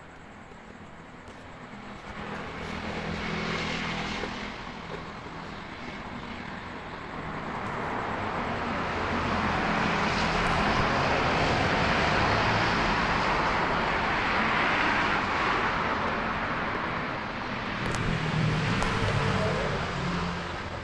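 Strong typhoon wind blowing in gusts, a roar that swells to its loudest through the middle, dips, and rises again near the end.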